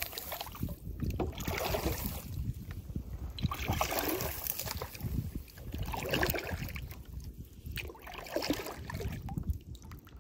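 Small handheld kayak paddles (backwater assault paddles) pulling through shallow creek water: a run of repeated splashing strokes, about one every second or so.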